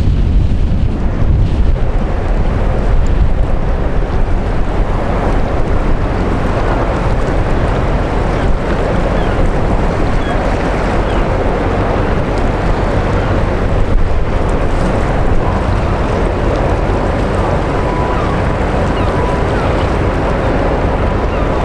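Waterside wind buffeting the microphone, with water washing and a steady low rumble from a large container ship passing close by.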